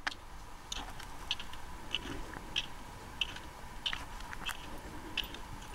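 Dry snow crunching in a steady rhythm, about three crunches every two seconds.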